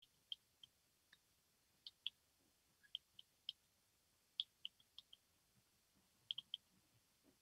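Near silence broken by faint, irregular small clicks, roughly two a second, from a stylus tapping on a tablet while words are handwritten.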